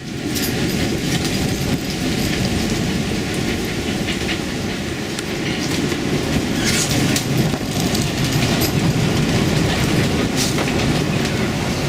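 Storm wind at sea rumbling hard across the microphone aboard a sailboat, with the rush of breaking waves, and brief hissing surges about seven and ten seconds in.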